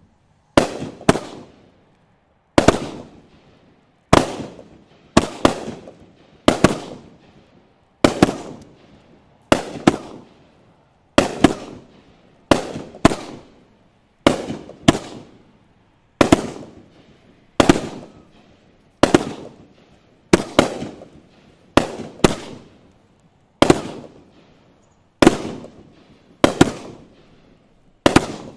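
Fireworks going off in a steady series of loud bangs, about one every second or so, some in quick pairs, each dying away in a short echo.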